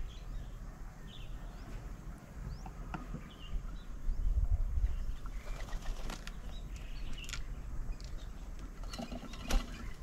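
Spotted dove's wings flapping as it lands among the others at a bird table, with a few sharp taps and brief high bird chirps.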